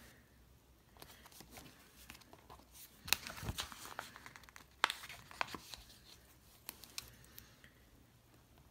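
Paper planner stickers being peeled off their backing sheet and pressed onto a planner page: scattered small clicks and crinkling, busiest around the middle.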